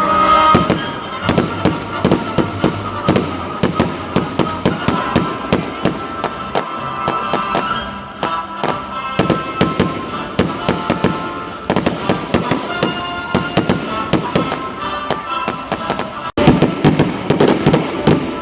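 Fireworks going off in rapid, continuous bangs and crackles, with music playing underneath. The sound cuts out for an instant about sixteen seconds in and comes back with a loud burst.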